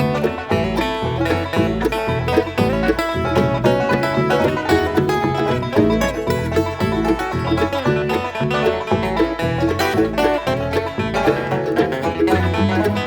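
Live bluegrass band playing an instrumental break, banjo prominent over guitar and a steady bass pulse, with no singing.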